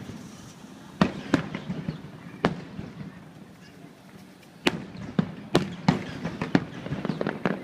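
Aerial firework shells bursting in a string of sharp, irregularly spaced reports, each trailing off, followed near the end by a quick run of crackling pops.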